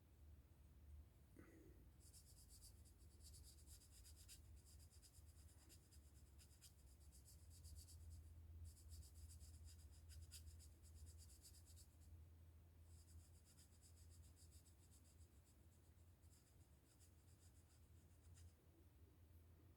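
Faint scratchy strokes of a colouring tip rubbing over a plastic model kit part, in runs of a few seconds with short pauses between them.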